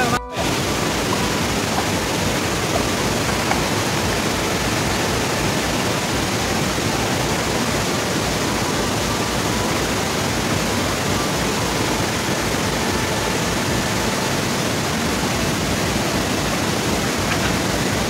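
Steady roar of rushing water from a jungle waterfall, an even hiss across all pitches. It cuts out for an instant right at the start.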